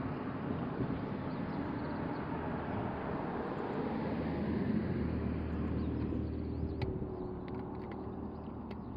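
Outdoor road traffic: a vehicle passing, its noise swelling to a peak about halfway through and then easing off, with a few faint clicks near the end.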